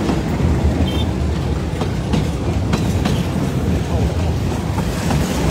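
Freight train of flatcars carrying tank containers rolling past close by: a steady low rumble with repeated clacks of the wheels over the rail joints.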